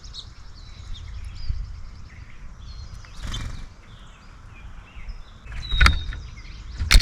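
Small songbirds chirping and calling around a bird feeder in short, scattered notes, over a steady low rumble. A few sharp knocks stand out near the end, louder than the calls.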